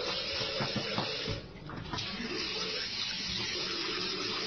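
Water running from a wall faucet and splashing steadily into a plastic basin, briefly softer about a second and a half in.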